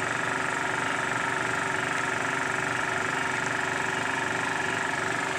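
Single-cylinder GX-type petrol engine of a portable generator running steadily at an even speed on its newly fitted carburettor, the hard-starting fault cured.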